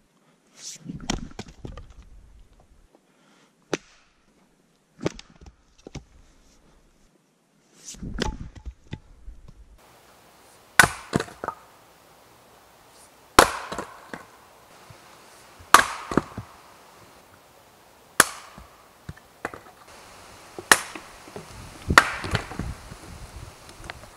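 Wood being chopped with a hatchet and an axe on a chopping block. Irregular, lighter knocks come first. About ten seconds in they give way to heavy axe strikes into rounds of firewood, about one every two and a half seconds, each followed by a short clatter.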